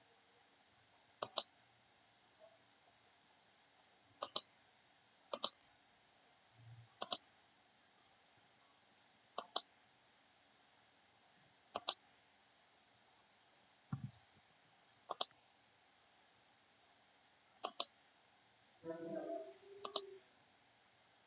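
Computer mouse clicking, mostly in quick double clicks, every second or two. A brief muffled sound comes near the end.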